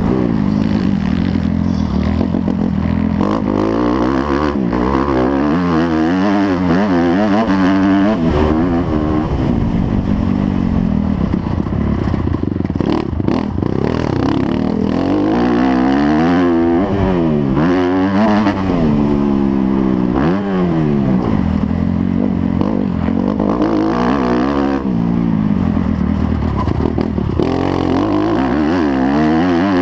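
Motocross dirt bikes' engines revving, several at once, their pitch rising and falling over and over as they accelerate and back off.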